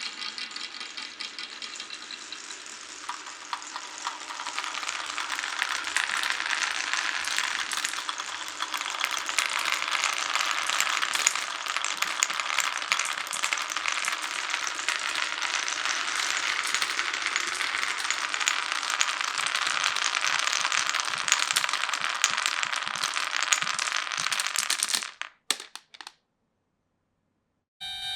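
Many marbles rolling and clattering down a wooden and plastic marble-run track, a dense continuous rattle of small clicks that builds up over the first few seconds and cuts off abruptly near the end.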